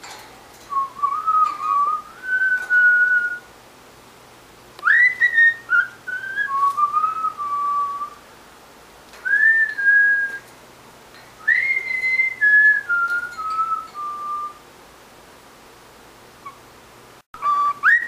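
Cockatiel whistling a run of short tune phrases, each starting with a quick upward slide and then stepping down in pitch, with pauses of a second or two between them.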